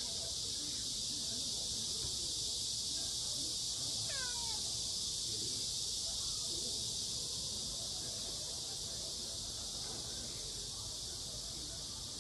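A cat gives one short meow that falls in pitch, about four seconds in, over a steady high-pitched hiss.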